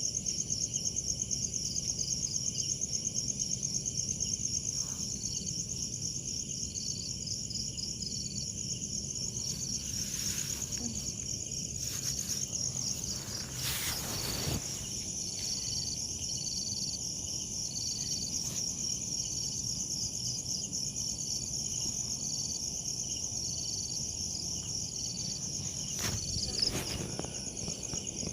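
Night insect chorus: crickets trilling steadily in a high, finely pulsing drone, with short chirps from another insect repeating about once a second. A few brief rustles break in around the middle and near the end.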